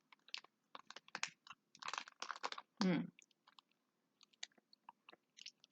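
A person chewing a soft-filled, chewy candy rope: irregular wet mouth clicks and smacks, with a short hum about three seconds in.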